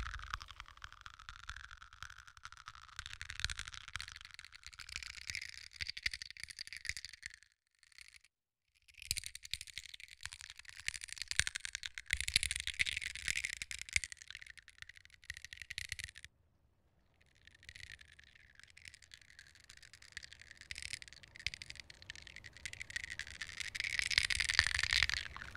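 Sound-installation soundscape built from recordings of seashells and pebbles being handled: a dense rattling, scraping clatter. It breaks off twice for a moment, about a third of the way in and just past the middle, and grows louder near the end.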